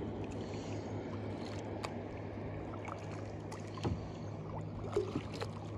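Kayak paddling: a double-bladed paddle dipping and pulling through calm lake water, with water dripping and splashing off the raised blade. A couple of small knocks in the second half, over a steady low hum.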